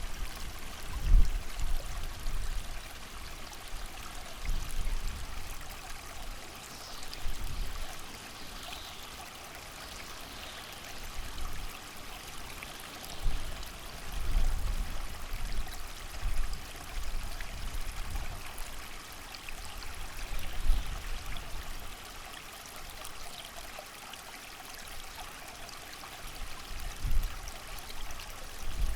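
Creek water flowing steadily with rain, a continuous wash of water noise. Low wind gusts rumble through it at irregular intervals, the strongest about a second in.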